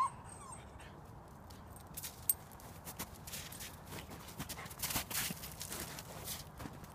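Footsteps crunching through crusty snow and dead leaves, an irregular crackle that gets busier from about two seconds in, with one sharp click shortly after.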